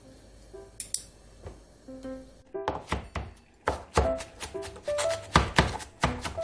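Kitchen knife chopping on a cutting board: a few strokes at first, then quick, steady chopping from about two and a half seconds in, over light plucked-instrument background music.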